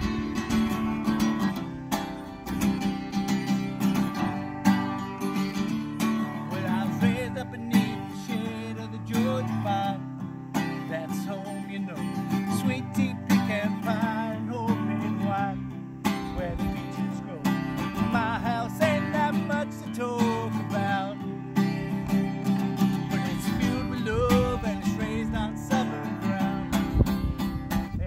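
A man strumming an acoustic guitar and singing along with it; the guitar plays alone at first and the voice comes in after about six seconds, in sung phrases over the strumming.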